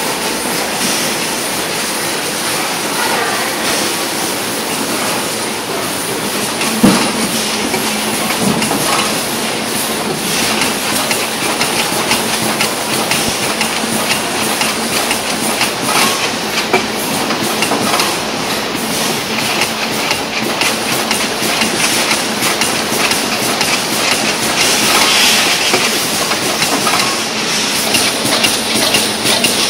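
Packing-line machinery running: conveyor belts and a premade-pouch packing machine clattering steadily with many small clicks, and one sharp knock about seven seconds in.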